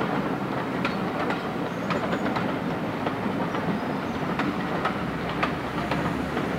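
A rake of passenger coaches rolling past at moderate speed, a steady rumble with the wheels clicking over the rail joints a few times a second.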